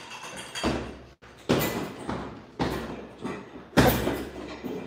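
A run of heavy impacts, about one a second, each hit sudden and loud and fading away with echo in a large room.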